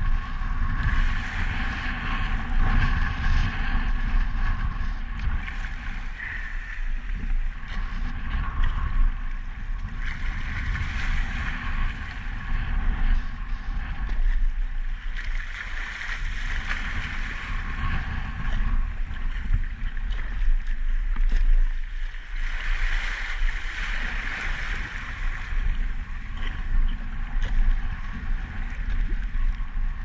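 Wind rumbling on the microphone over choppy, wind-driven water washing and splashing against a sea kayak's hull, with the water noise swelling every few seconds.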